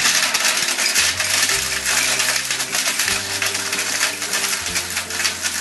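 Vita-Mix blender running, grinding hard mint Mentos candies into powder: a loud, dense rattle of candy clattering in the jar that starts suddenly as it is switched on. Quiet background music with steady notes plays underneath.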